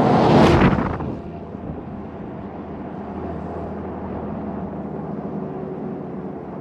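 A motor vehicle passes close by, loudest about half a second in and fading over the next second, followed by a steady engine running sound.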